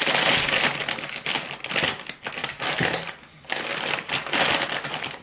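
Foil snack-mix bag crinkling and crackling as it is gripped and pulled open by hand, with a brief pause about three seconds in.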